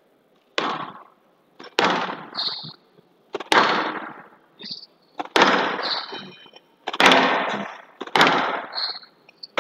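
Squash rally in a glass court: the ball is struck by racquets and slams into the walls with a sharp echoing crack about six times, every one to two seconds. Short high squeaks of court shoes come between the shots.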